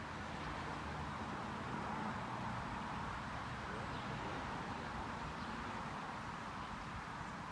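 Steady outdoor background noise: an even hiss with a faint low rumble, with no clear single event.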